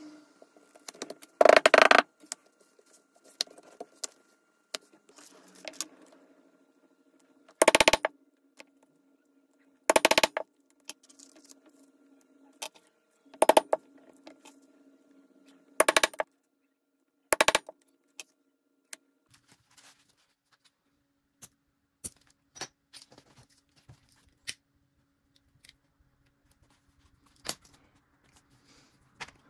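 Leather-working sounds: six short bursts of rapid clattering, each about half a second long, with scattered small clicks between them. A faint steady hum runs under the first half and stops about halfway through.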